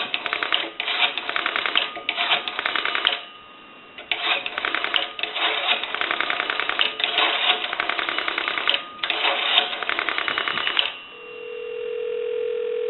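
Payphone dial being dialed: three runs of fast mechanical clicking, one digit after another, with short pauses between them. About eleven seconds in the clicking stops and a steady ringback tone rises from the handset as the time-and-temperature line rings.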